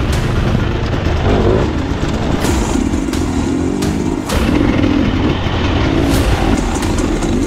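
Dirt bike engine revving up and down, with several sharp knocks along the way.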